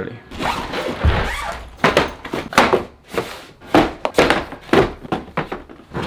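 A run of knocks and thuds from a box being handled and set down, with a heavier low thud about a second in.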